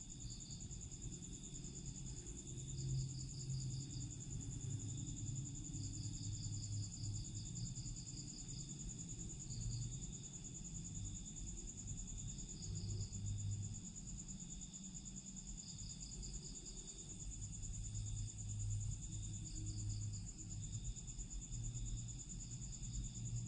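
Insects trilling: one steady high, finely pulsing trill throughout, with a second pulsed chirping that starts and stops in short runs every few seconds, over a low, wavering hum.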